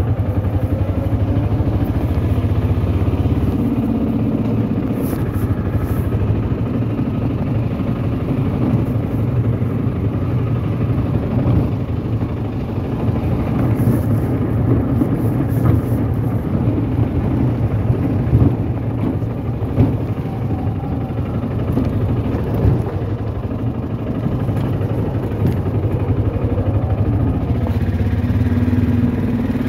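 A vehicle's engine runs steadily and is heard from on board, with a continuous low rumble of engine and road noise. The engine note rises and falls a little.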